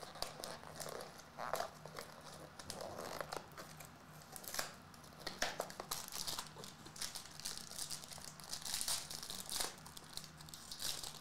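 Hands tearing open a trading card box and the foil-wrapped card pack inside, the packaging crinkling and tearing in quick irregular rustles.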